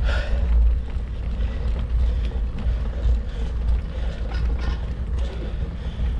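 Wind rumbling steadily on the microphone of a moving bicycle, with faint scattered ticks and rattles.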